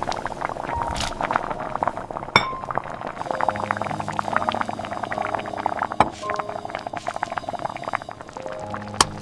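Glass and kitchenware clinking, among a dense run of small taps and ticks, with a couple of sharper knocks.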